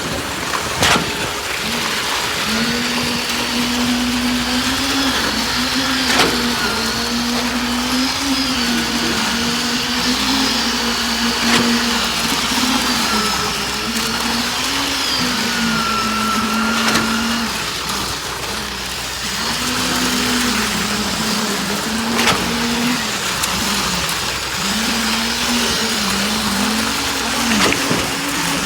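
Motor of concrete-pouring machinery running continuously, its pitch dipping and recovering every few seconds as the load on it changes, with a few sharp knocks scattered through.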